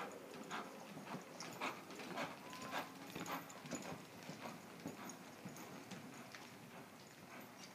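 A ridden horse's hoofbeats on soft arena dirt, a regular beat about twice a second, loudest in the first three seconds and growing fainter toward the end.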